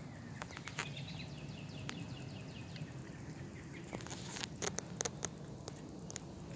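A kitten crunching dry cat kibble: irregular sharp crunches and clicks, with a quick run of louder ones a little after four seconds in.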